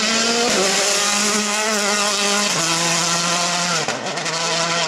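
A Citroën DS3 rally car's turbocharged four-cylinder engine pulling hard at high revs as the car passes and drives away. Its pitch drops in steps three times as it shifts up.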